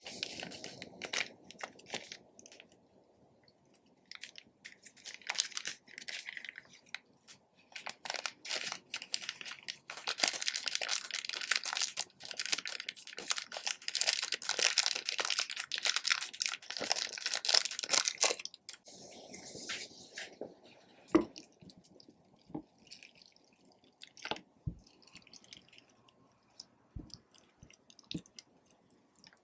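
Slime being kneaded, stretched and squeezed by hand, with sticky crackles and small pops. The crackling is densest through the middle and thins to scattered clicks and taps near the end.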